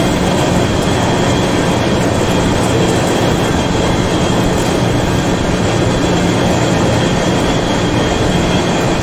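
Heavy-duty vertical lathe running, its cutting tool taking a cut on a large metal ring and curling off chips: a loud, steady machine drone with a thin, high, steady whine above it.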